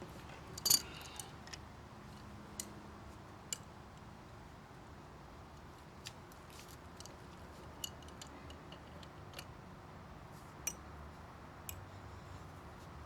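Scattered light clicks and taps from tools and pipe parts being handled while a plumbing fitting is worked on, the sharpest about a second in.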